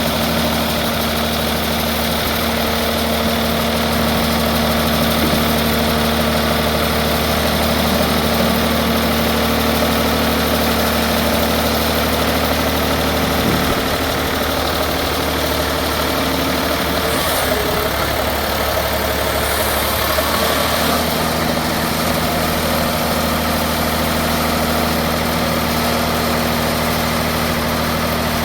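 Tire baler machinery running with a steady, loud hum. About halfway through the sound shifts and wavers for several seconds, then settles back to the same steady hum.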